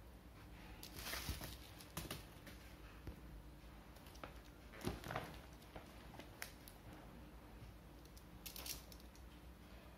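Faint, scattered handling sounds: soft knocks and crinkling rustles as paper label rolls and plastic packaging are moved and set down. The loudest come about a second in and around the middle.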